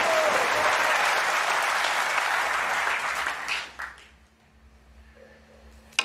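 Arena crowd applauding a potted brown in snooker. The applause dies away about three and a half seconds in, leaving a hushed hall, and right at the end comes the sharp click of a snooker cue tip striking the cue ball.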